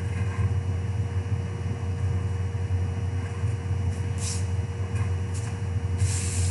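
Steady low hum with a faint high tone held above it. Over it come a few short scratches of a pencil drawing on paper, about four seconds in and again near the end.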